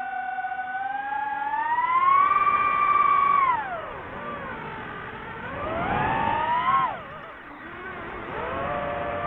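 Quadcopter drone's motors and propellers whining with throttle changes. The pitch climbs over the first three seconds, holds, then drops steeply about three and a half seconds in, and rises and falls again more quickly a little after halfway.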